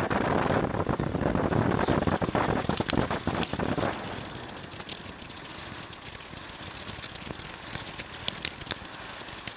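Hog Wild Fireworks 'Hip Hop' firework fountain burning: a loud, steady hiss of spraying sparks that drops off about four seconds in to a quieter spray, with sharp crackles and pops scattered through the last few seconds.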